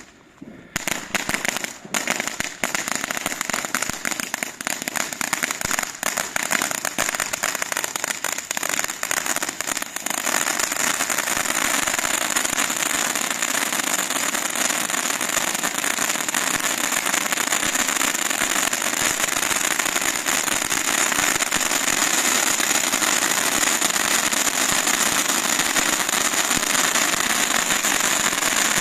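Large firework fountain with popping crackle stars burning: dense rapid popping and crackling from about a second in, thickening about ten seconds in into a steady continuous crackling hiss.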